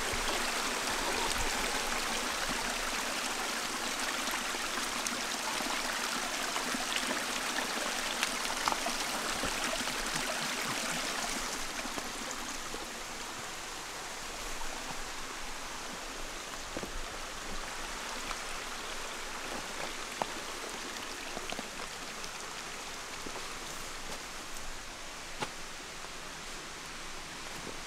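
Small mountain stream trickling and splashing over rocks, a steady rush of water that drops back and turns duller about twelve seconds in. A few faint clicks from footsteps on the stones.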